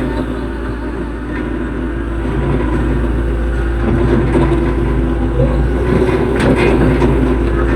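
Hitachi EX110 hydraulic excavator's diesel engine running steadily under working load, growing slightly louder after about two seconds, with a brief clatter about six and a half seconds in.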